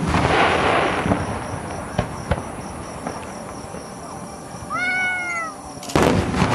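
Aerial firework shells bursting: a deep boom at the start that rolls away over about a second, two sharp cracks about two seconds in, and another loud boom near the end.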